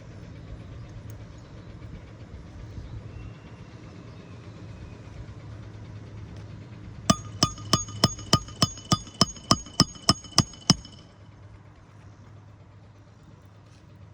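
Hammer driving a roofing nail under a lifted asphalt shingle with a metal nail-driving tool: about fourteen quick metal-on-metal strikes, around four a second, each with a short ring, starting about halfway through. A low steady hum runs underneath.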